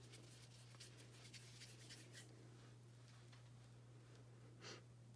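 Faint, rapid rubbing strokes of a palm rolling a lump of black polymer clay into a ball on paper, over a steady low electrical hum. One brief soft swish near the end.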